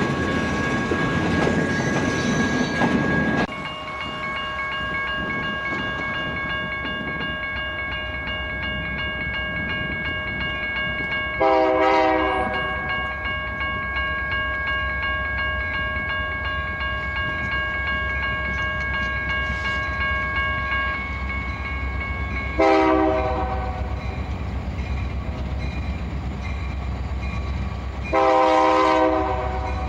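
A freight train's last cars clatter past and are gone about three and a half seconds in. A grade-crossing bell then rings while an approaching Union Pacific diesel locomotive sounds its chime horn in separate blasts, about a third of the way in, about two-thirds in and near the end. The locomotive's engine rumble grows louder in the last seconds.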